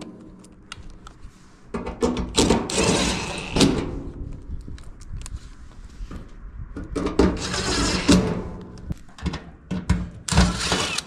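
Knocks, clatter and rustling of tools and parts being handled, in several loud bursts with scattered clicks between them.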